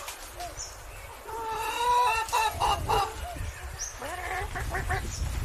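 Chickens clucking in short curved calls over a steady low wind rumble, with one longer drawn-out call from about one to three seconds in that breaks up at its end.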